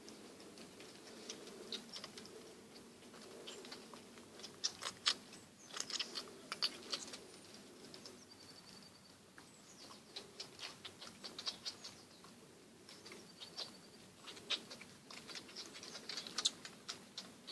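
Tibetan mastiff puppies suckling at their mother: faint, irregular wet clicks and smacks in quick clusters, busiest about a third of the way in and again near the end.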